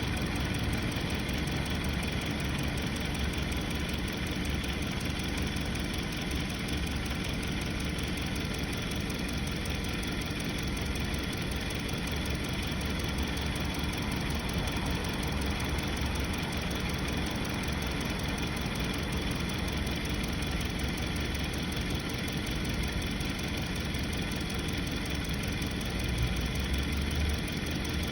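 2020 Hyundai Sonata four-cylinder engine idling steadily with a misfire. The cause is a fuel injector that does not close.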